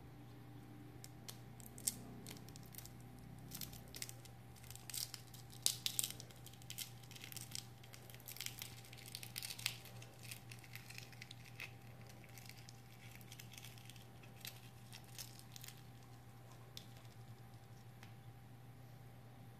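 Hard-boiled eggshell crackling and scraping as a metal teaspoon is worked under it to peel it away: a run of small crackles and clicks, densest in the middle and thinning out near the end, over a faint steady hum.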